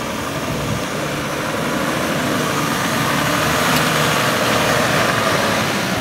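Engine of a Toyota Land Cruiser 80-series 4x4 running under load as it crawls through a muddy riverbed, growing louder as it draws close and easing off near the end.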